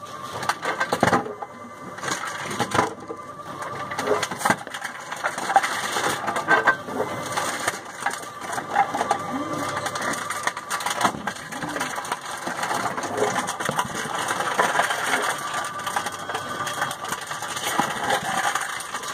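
Reverse vending machine for deposit bottles running, its roller conveyor taking in plastic bottles while they are crushed and compacted inside, heard as irregular crackling and crunching of plastic over a steady motor whine.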